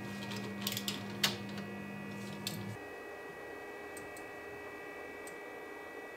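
TwoTrees Sapphire Plus CoreXY 3D printer homing its axes: the stepper motors give a steady low hum that stops about three seconds in, with a few light clicks in the first half.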